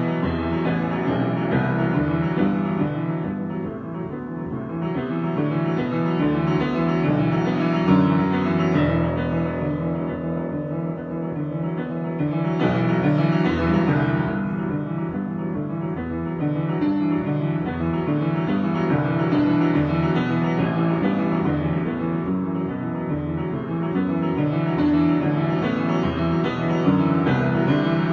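Piano improvisation, played continuously in dense, sustained chords and runs that swell and ease in loudness.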